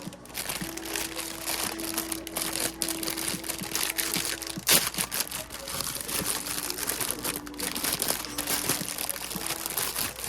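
Blind-box packaging crinkling and crumpling as it is opened by hand, with many small crackles and one sharp louder crack about halfway through.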